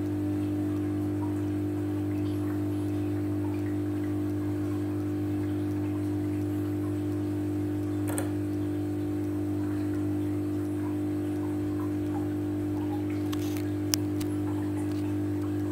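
Steady electrical hum of aquarium pump equipment: a low drone with a higher tone above it that never changes. There is a faint click about eight seconds in and a short, sharper click near the end.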